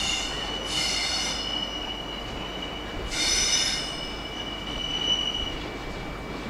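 Freight train wagon wheels squealing as the train runs by: a steady high squeal that swells into shriller bursts three times, over a low rolling rumble.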